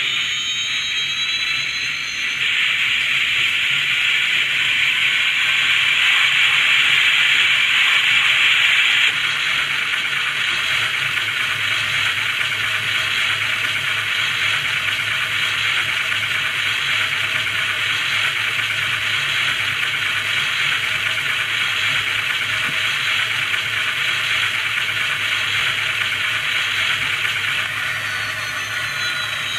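Helicopter turbine-and-rotor running sound produced by an HO-scale DCC model UH-1H Huey: a steady, hiss-like sound, louder for the first several seconds. Near the end it drops slightly and a falling whine begins as the model starts to power down.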